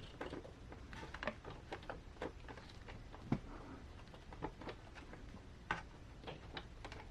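Faint, scattered light clicks and taps of a scale RC crawler being handled while its wheel and tire are checked against the fender for rubbing.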